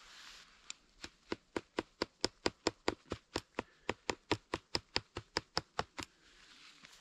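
Rapid, evenly spaced clicking, about four to five sharp clicks a second for some five seconds, from hand work at a tarp corner's fittings.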